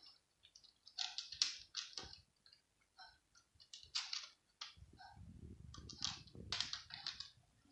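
A domestic cat crunching dry kibble: several bursts of sharp, crisp crunching clicks, with a low rumble underneath for a couple of seconds past the middle.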